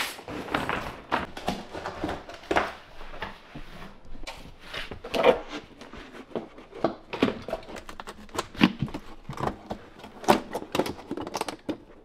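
Stiff plastic Ditra XL tile-underlay membrane being handled: irregular clicks, crinkles and rustles as the sheet is unrolled, laid down and pressed into place on the floor.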